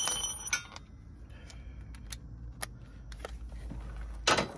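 A metal bit clinks into a cordless drill/driver with a short ringing tone that fades within the first half second, followed by light clicks and taps of tool handling, and one sharp, louder burst near the end.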